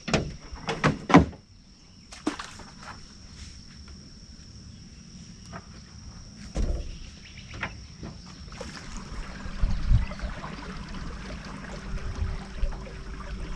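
Several sharp knocks in the first second or so, then scattered lighter clicks and low rumbling, the sounds of handling gear in a boat, over a steady high-pitched whine.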